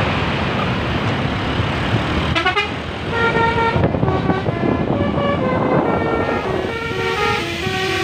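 Bus 'telolet basuri' multi-tone air horn playing a tune of short stepped notes from about three seconds in, over steady traffic and engine noise.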